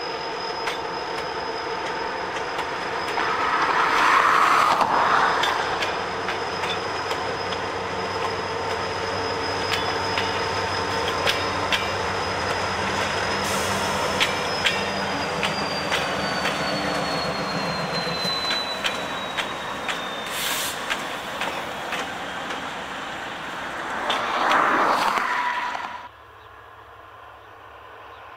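Freight train rolling past: steel wheels clicking over the rail, with a high thin wheel squeal that slides down in pitch midway. It swells louder twice, and about two seconds before the end it cuts abruptly to a much quieter, distant train.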